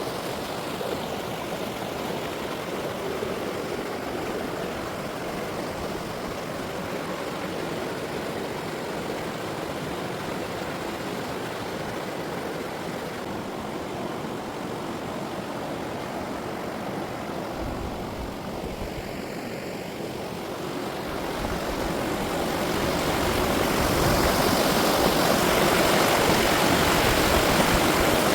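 Mountain stream rushing over rocks, a steady even rush that grows louder about three-quarters of the way through.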